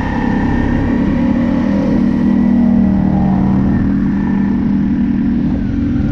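Off-road vehicle engine running at a fairly steady speed, its hum shifting a little in pitch, over a constant low rumble.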